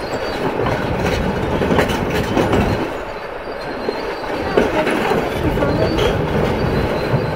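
Kobelco SK500LC crawler excavator at work: its steel tracks clank and squeal over an engine rumble, with irregular metallic knocks throughout.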